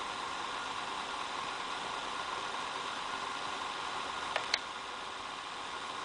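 Acer Aspire 5755G laptop's CPU/GPU cooling fan running with a steady whir, a noise the owner found unbearable enough to send the laptop in over. Two quick clicks come about four and a half seconds in.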